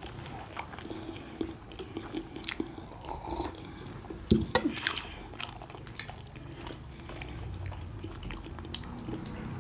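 People chewing steamed momo dumplings, with small clicks of chopsticks on steel plates throughout and one louder knock about four seconds in.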